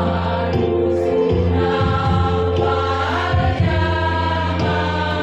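Women's choir singing a hymn in held notes over a steady low accompaniment.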